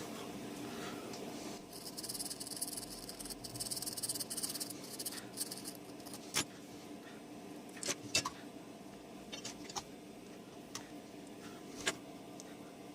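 Flux sizzling under a soldering iron as a connector's latch tab is soldered: a soft hiss for about four seconds, followed by a few light clicks of tools against the circuit board.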